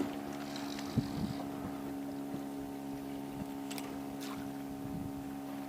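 A steady low mechanical hum, with a few light knocks and clicks about a second in and again near four seconds.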